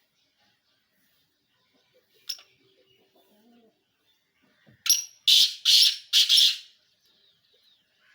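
Pheasant calling: four loud, harsh calls in quick succession about five seconds in, preceded by a single faint click.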